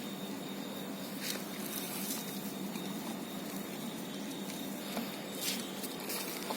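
Puppies lapping and scuffling at a milk bowl: faint wet patters and a few soft clicks over a steady background hum.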